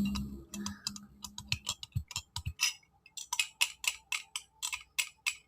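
Metal spoon stirring in a drinking glass: a run of light clicks and taps against the glass, sparse at first, then quicker, about four a second, in the second half.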